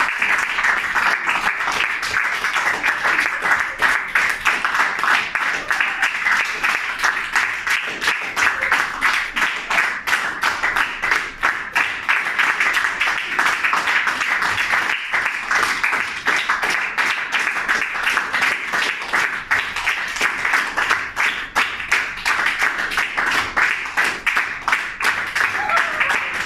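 A group of people clapping their hands in steady, sustained applause.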